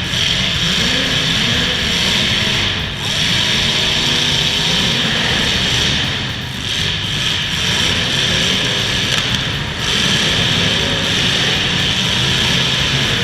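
Demolition derby cars' engines running and revving over a steady wash of noise, pitch rising and falling several times.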